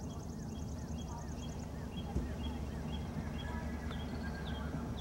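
A horse's hoofbeats, muffled in the sand footing of an outdoor dressage arena, under a steady low rumble. High chirps repeat at a quick, even pace and die away about a third of the way in.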